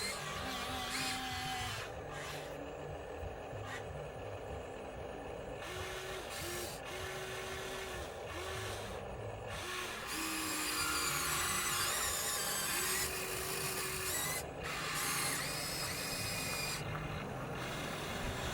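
Small electric motors of radio-controlled construction models whining in short runs, starting and stopping over and over.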